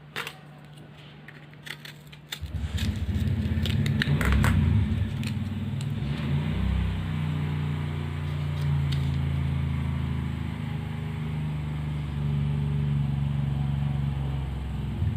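Plastic packaging of a laptop memory module being opened, with a few sharp clicks and crackles; about two seconds in, a motor vehicle engine starts up close by and keeps running steadily, the loudest sound from then on.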